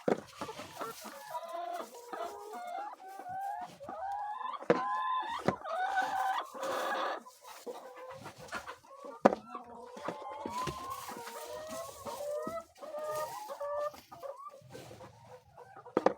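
A flock of chickens clucking and calling over one another, with a few sharp knocks, the loudest about nine seconds in.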